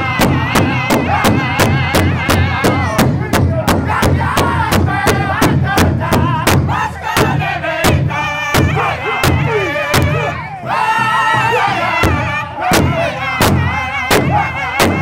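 Powwow drum group beating a large hide-covered powwow drum in a steady fast beat, about four strokes a second, while singing a high-pitched powwow song together with women's voices joining in. About ten seconds in, the drum stops for about two seconds while the singing carries on, then the beat resumes.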